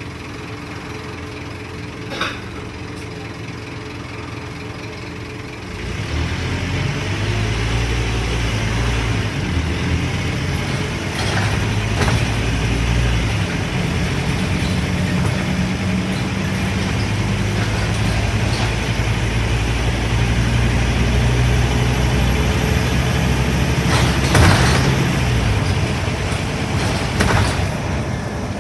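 Scania N230UD double-decker bus's five-cylinder diesel engine heard from inside the upper deck: idling for about six seconds, then pulling away and working hard as it changes up through the gears. A few short knocks and rattles from the bus body come through along the way.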